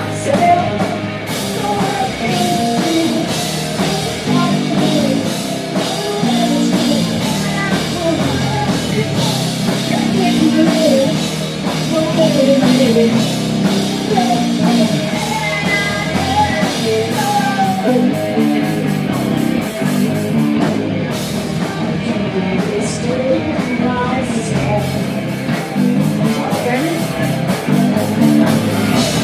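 Live rock band playing loud, with electric guitars, drums and a singer.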